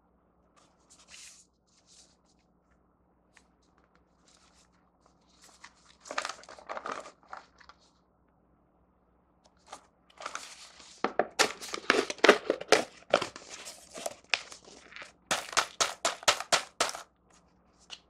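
Foil lid being peeled off a paper popcorn cup: a stretch of loud, rapid crinkling and crackling in the second half, after quieter rustling as the cup is handled.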